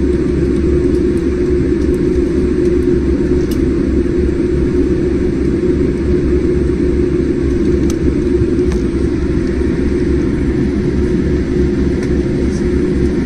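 Jet airliner's engines and rolling rumble heard from inside the passenger cabin while the plane taxis: a steady, loud drone with a constant hum.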